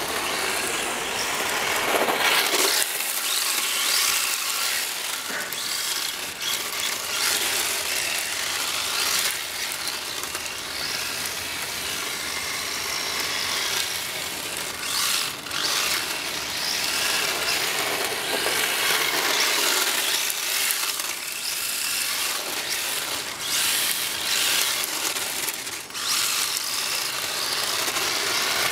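Electric RC drift car (Kyosho Fazer VE-X) running on asphalt: a high-pitched motor and drivetrain whine that surges and eases with the throttle as the car slides through drifts, with tyre scrub on the tarmac.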